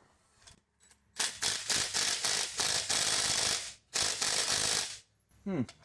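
Impact wrench hammering on the flywheel nut of a Kohler Command CH16S engine in two bursts, the first about two and a half seconds long, the second about one second. The nut is stuck fast and does not break loose.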